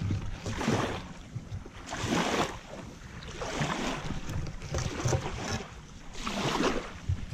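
Wind on the microphone with small waves washing onto the sand shore, swelling and fading every second or two.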